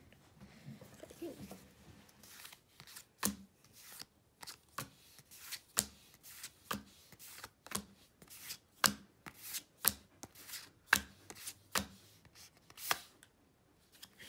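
Pokémon trading cards being sorted through by hand, each card making a sharp click, about two a second, starting about two seconds in.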